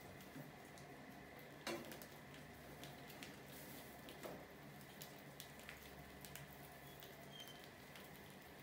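Faint scattered clicks and scrabbling of mice moving over a plastic bucket trap and its wooden ramp, with one sharper click about two seconds in, over a steady faint hum.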